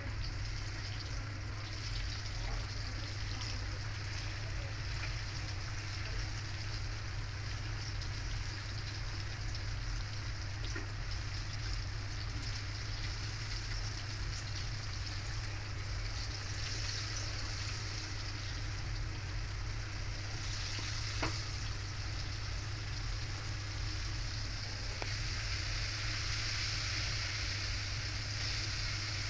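Flour-coated chicken pieces deep-frying in hot oil in a wok, a steady sizzle that grows a little louder near the end, over a low steady hum.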